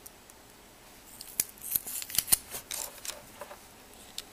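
Packaging of a small surface-mount chip being opened by hand: a cluster of sharp plastic clicks and short crinkles starting about a second in and lasting about two seconds.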